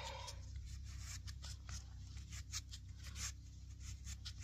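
Faint scattered clicks, scrapes and rustles of handling over a low steady rumble.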